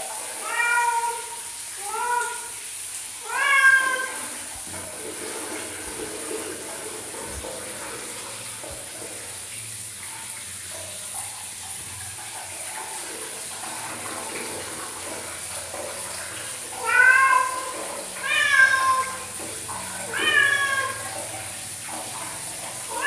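Domestic cat meowing loudly and repeatedly, each meow falling in pitch. There are three meows in the first four seconds, a long gap without calls, then three more starting about seventeen seconds in.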